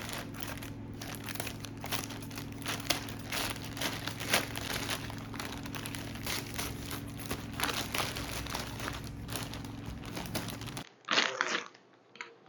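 Packaging being crinkled and rustled in the hands, a dense run of irregular small crackles over a steady low hum. It stops abruptly near the end.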